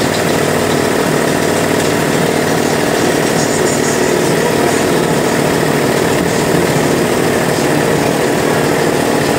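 A boat's engine running steadily at an even speed, with no change in pitch.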